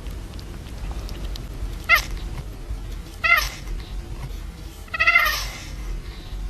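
A cat meowing three times, short calls about two and three seconds in and a longer one about five seconds in.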